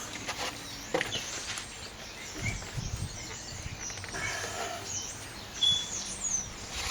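Quiet outdoor background with small birds chirping now and then in the second half, a short knock about a second in and a brief low rumble around the middle. No welding arc is heard.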